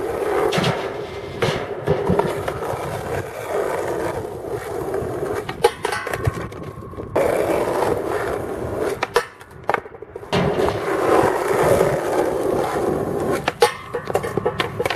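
Skateboard wheels rolling on concrete with a steady rumble that drops away briefly twice, broken by a few sharp clacks of the board; near the end the board clatters off a low metal flat bar as a crooked grind attempt ends in a bail.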